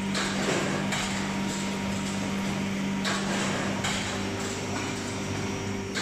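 Packaging line running: the conveyor and checkweigher belts give a steady hum, with a few light knocks and clatters from cartons and machinery.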